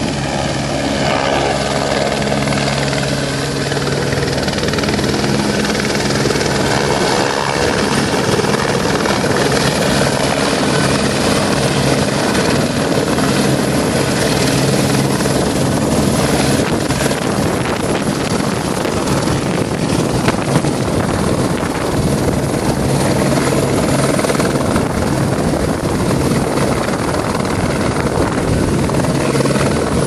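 Helicopter hovering in and landing, its rotor and engine making a steady, loud drone with a low hum held throughout. Gusty wind rumbles on the microphone.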